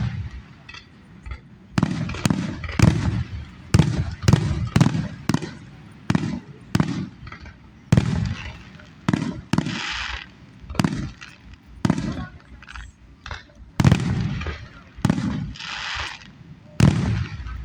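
Aerial fireworks bursting overhead in a rapid series of deep booms, some followed by crackling, heard distorted through poor recording quality.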